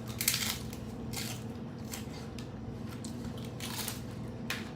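Close-up chewing of crunchy fried corn tortilla: several separate crisp crunches a second or so apart, the sharpest about a quarter second in.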